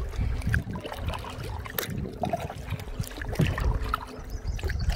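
Kayak paddles dipping into calm water, with water trickling and dripping off the blades in small irregular splashes, over a low steady rumble.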